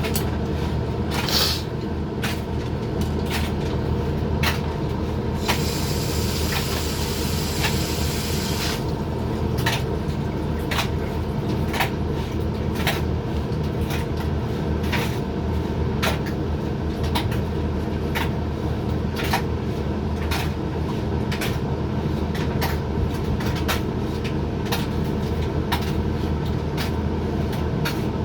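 Hoover XXL laundry machine on a 60 °C drying cycle: the drum turns with a steady motor and fan hum, and the tumbling load knocks about once a second. A few seconds in, a hiss rises over it for about three seconds.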